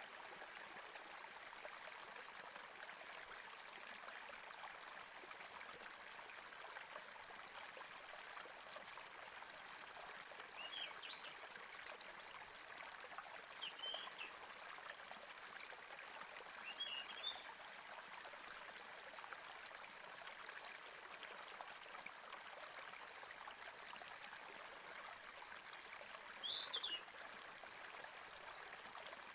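Faint, steady sound of a stream of running water, with a few short, high bird chirps now and then, four in all.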